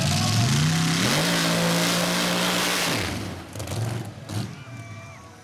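Mud drag race truck's engine at full throttle on a run: the pitch climbs over the first second, holds high, then falls away abruptly about three seconds in. A few sharp knocks follow as the sound dies down.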